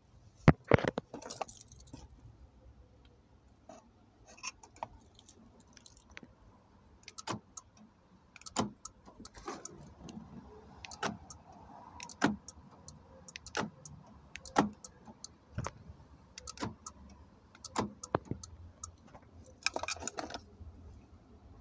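Door lock actuators of a Hyundai i30 clicking sharply about once a second, cycling lock and unlock as a freshly wired aftermarket PNI 288 central-locking module is tested. Keys or remote are jangled and handled near the start and again near the end.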